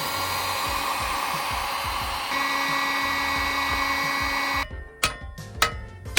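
Oxyacetylene torch hissing steadily, cutting off abruptly about four and a half seconds in, followed by a few sharp metallic clicks.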